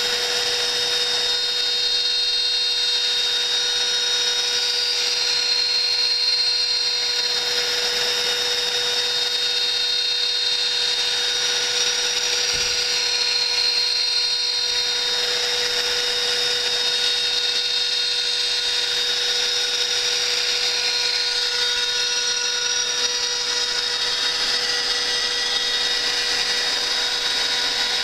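CNC router spindle with an end mill cutting through a plate: a steady high whine over the noise of the cut, running evenly throughout.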